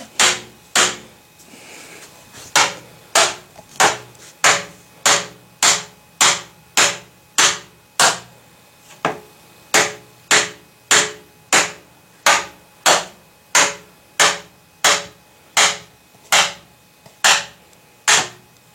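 Steady hammer blows, about two a second, knocking PVC pipes down into PVC fittings to seat the joints. Each blow is a sharp knock with a short ring.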